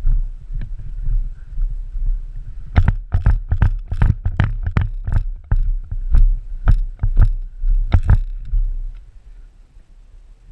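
Airsoft gun shots: about fifteen sharp single cracks at an uneven pace, starting about three seconds in and stopping about eight seconds in, over a low rumble on the microphone.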